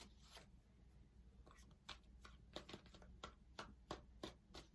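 Faint, irregular clicks and taps of tarot cards being handled and shuffled.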